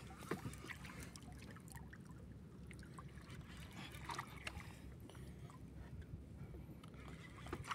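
Faint water lapping against the hull of a wooden outrigger banca, with a few scattered light clicks.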